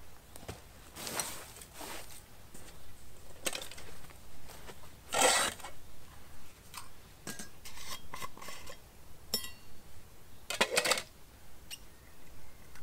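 Camping cookware being handled on the ground: metal pots and lids knocking and clinking, with rustling in between. The loudest knock comes about five seconds in, a short ringing clink a little after nine seconds, and another cluster of knocks near eleven seconds.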